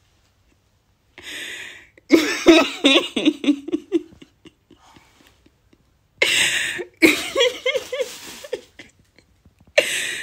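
A person's voice in short bursts, most likely laughing and coughing, after about a second of dead silence at the start.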